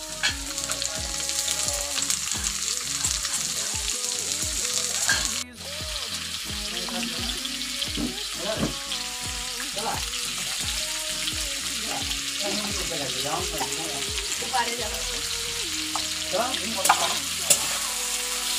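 Potato cubes and vegetable stems frying in oil in a steel kadai, with a steady sizzle and the scrape of a metal spatula stirring against the pan. The sound cuts out briefly about five and a half seconds in.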